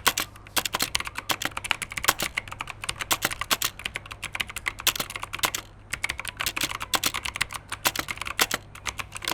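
Fast typing on the RedGear Shadow Amulet mechanical keyboard with clicky blue switches (Outemu, a Chinese clone of Cherry MX Blue): a rapid run of sharp key clicks with a short pause a little past halfway, carrying a slight metallic ring from the key springs.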